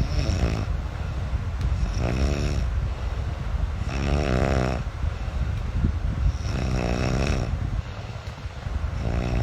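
A sleeping person snoring, with pitched snores that sound like a dinosaur, about every two to two and a half seconds, five in all, over a steady low rumble.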